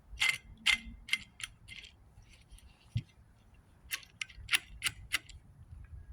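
Sharp clicks, about three a second, in two runs with a single dull knock between them, from hand tools working the water-pump belt tensioner off the engine.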